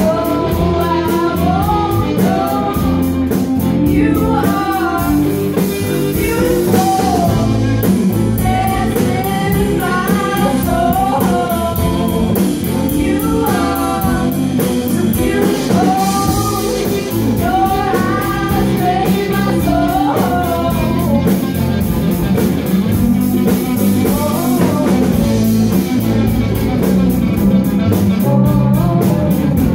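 Live folk band playing a song: a woman sings the melody over acoustic and electric guitars, with a steady beat.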